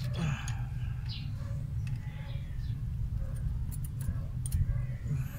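A few light clicks of hand tools over a low, steady background rumble.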